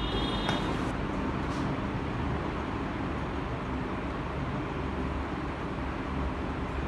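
Steady road traffic noise, with a horn sounding for under a second at the start.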